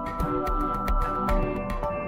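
Background music: sustained synth notes that change pitch every second or so, over a low pulsing beat.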